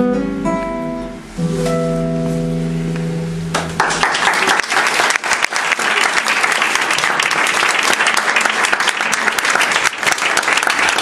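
Nylon-string classical guitar playing the closing notes of a bossa nova, ending on a chord left to ring. About three and a half seconds in, the audience breaks into applause that keeps going.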